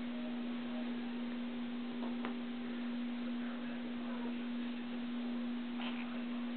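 A steady low hum, one unchanging tone, over faint hiss, with a soft click about two seconds in.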